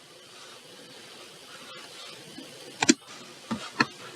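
Faint steady hiss with a few sharp clicks about three seconds in.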